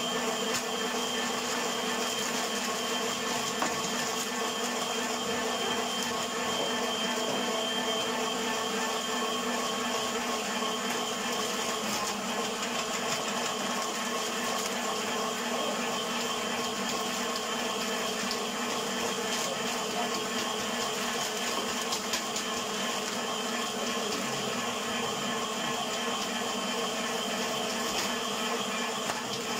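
A steady mechanical hum made of several constant tones that do not change, with a few faint ticks over it.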